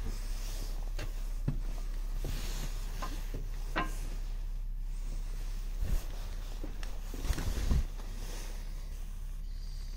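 Scattered light knocks, clicks and rustles from a phone being handled and carried around, over a steady low hum. A few louder knocks come about six seconds in and again just before eight seconds.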